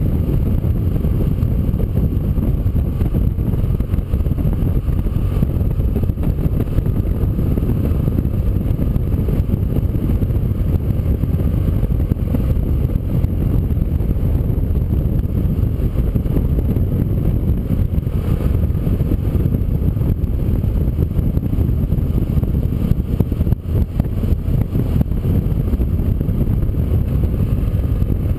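Motorcycle running at road speed, its engine mostly buried under steady wind noise on the microphone.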